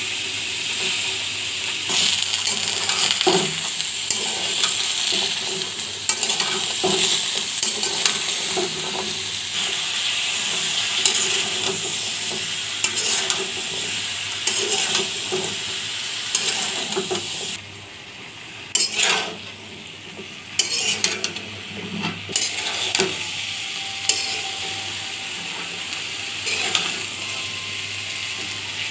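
Cut potatoes and eggplant dry-frying without oil in a metal pan, hissing steadily as a metal spatula stirs and scrapes them, with frequent clicks and knocks of the spatula on the pan. The sizzle dips for a few seconds past the middle while the knocks go on.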